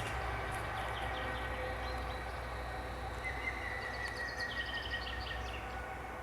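Songbirds singing in a spring forest: a bird's song of quick repeated notes rises above a steady low rumble about four seconds in.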